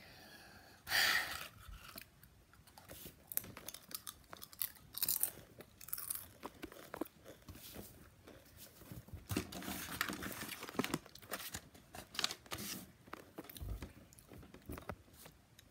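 Doritos tortilla chips being crunched and chewed close to the microphone, a run of irregular crunches, with a louder rustle about a second in.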